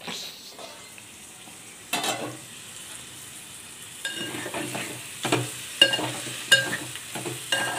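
Chicken and gongura leaves frying in a metal pot with a steady sizzle while a spatula stirs and scrapes through them. In the second half the spatula knocks against the pot several times with short metallic clinks.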